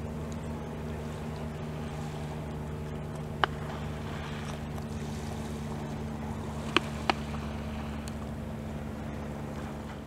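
Steady low drone of a boat engine out on the water, with three short sharp clicks: one about a third of the way in and two close together about two-thirds in.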